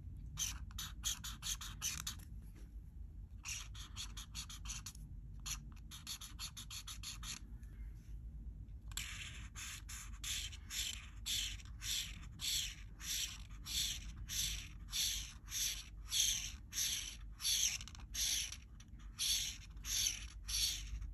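Art marker tip rubbing across a colouring-book page. For the first eight seconds or so it goes in quick bursts of short strokes with brief pauses. After that it settles into steady, even back-and-forth strokes about two a second, filling in an area.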